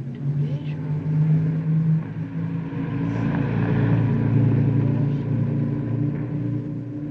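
Closing music: low sustained chords that change about two seconds in, swell to a peak about four seconds in, then ease off.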